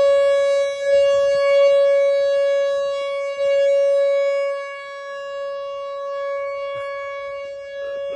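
Outdoor tornado warning siren sounding loud and close, one continuous wail held at a steady pitch. Its loudness swells in the first half and then eases off somewhat.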